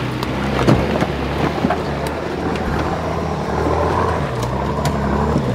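Nissan GQ Patrol 4WD engine running steadily at low revs as the truck crawls up a steep, loose, rocky hill, with scattered sharp clicks and knocks of rock under the tyres.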